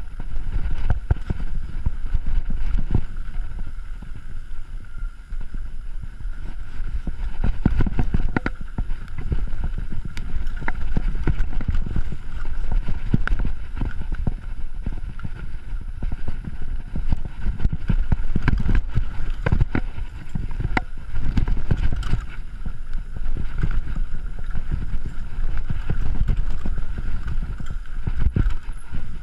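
Mountain bike ridden fast down a dirt trail: a steady low rumble of tyres and wind on the microphone, broken by frequent rattles and knocks from the bike over bumps and roots.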